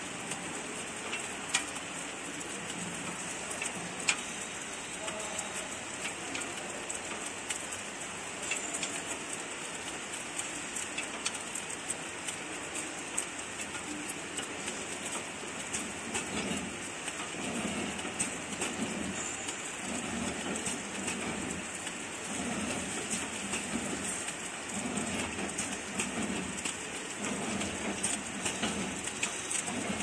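CHLB CB-450XWS flow-wrapping packing machine running: a steady dense hiss with a fine rattle of many small clicks from its belt and mechanism.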